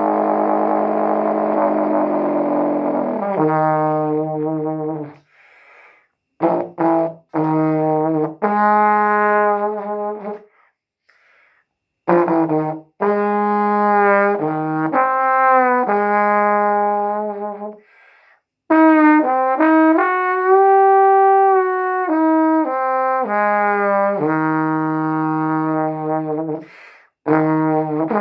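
Solo trombone improvising a slow blues: phrases of held notes with short pitch bends, broken by brief silences. The first few seconds hold a denser, rougher sustained sound before the clean phrases begin.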